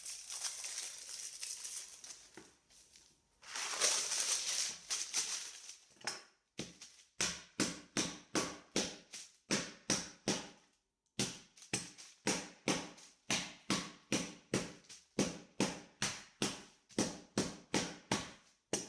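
Candy wrappers crinkling as wrapped hard candies are unwrapped. About six seconds in, a steady run of strikes begins, roughly two a second with one short break: a mallet crushing filled hard candies folded in kitchen paper on a table.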